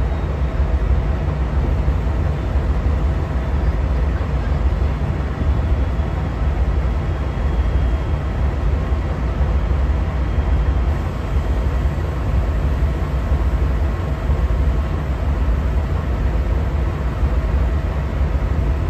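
Amtrak GE P42DC diesel-electric locomotive standing and running steadily: an even, deep diesel rumble from its V16 prime mover, with a faint steady whine above it.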